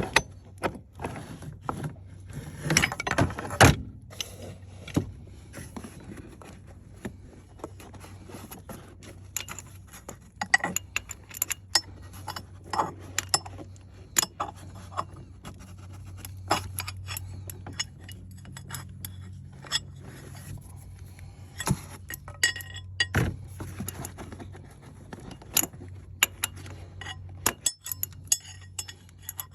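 Metal hand tools (wrenches and a ratchet) clinking, clicking and knocking irregularly against each other and the bolt, with a steady low hum underneath.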